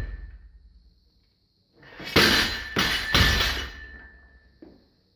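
A loaded Olympic barbell with bumper plates dropped from overhead onto the gym floor, about two seconds in. There are three heavy impacts as it lands and bounces, and the bar's metal rings on for a couple of seconds.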